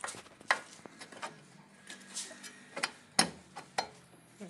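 Irregular clicks and knocks of metal suspension parts and tools being handled while a car's front lower control arm is fitted. The loudest knocks come about half a second in and just after three seconds.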